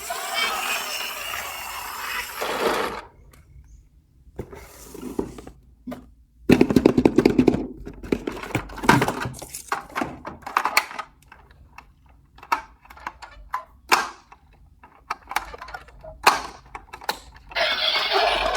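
Hard toys being handled, knocking and clattering: a rattling rush for the first few seconds, a loud burst of clatter about six seconds in, then scattered knocks and clicks.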